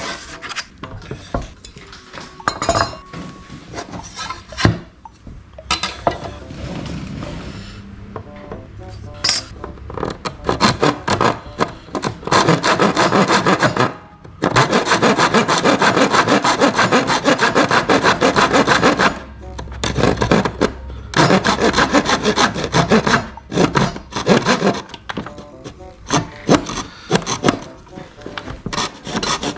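A saw cutting away about 2.7 mm of a battery adapter's housing so it will fit the 40V tool: quieter handling noises at first, then rasping sawing in long runs with short pauses through the second half.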